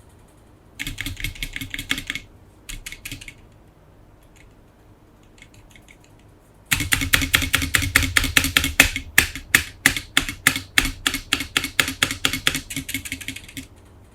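Typing on a Leopold FC660M mechanical keyboard: a short burst of keystrokes about a second in, another brief one near 3 s, then after a pause a long, fast run of clacking keystrokes from about 7 s until just before the end.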